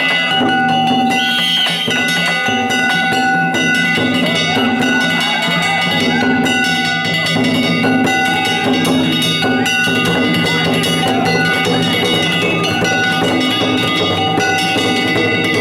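Danjiri festival music: fast, continuous clanging of small hand gongs with drum beats under it, the metal ringing on.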